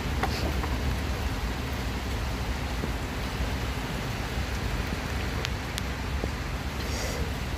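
Heavy rain falling steadily, an even hiss with a steady low rumble underneath and a few sharp ticks of drops about five and a half seconds in.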